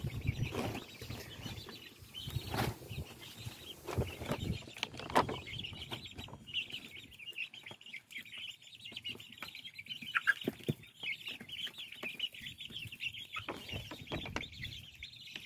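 A flock of young guinea fowl keets and chicks peeping, a steady high chirping chorus, with scattered taps and knocks.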